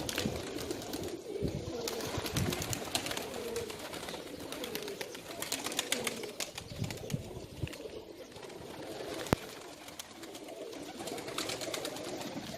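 Many domestic pigeons cooing together in a loft, with scattered light taps and one sharp knock about nine seconds in.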